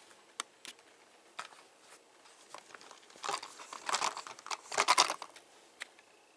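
Hands handling plastic toy parts: scattered sharp clicks, then a denser crinkling rustle with clicks, loudest about three to five seconds in.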